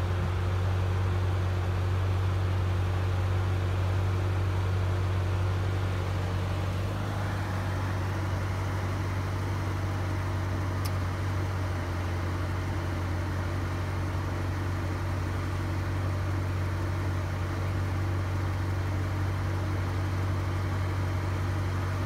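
The Jeep Grand Cherokee SRT's 392 (6.4 L) Hemi V8 idling steadily, a low even hum with a hiss over it. It brightens slightly about seven seconds in.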